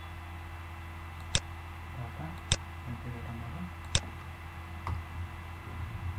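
Computer mouse clicking: three sharp clicks, roughly a second or more apart, and a fainter one near the end, over a steady low electrical hum.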